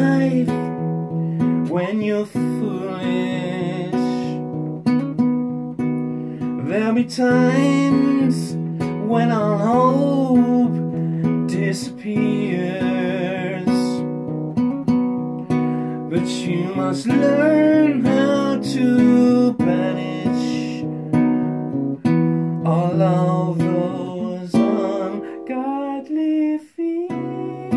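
Strummed acoustic guitar playing chords under a lead melody whose held notes waver in pitch, with a brief drop in level near the end.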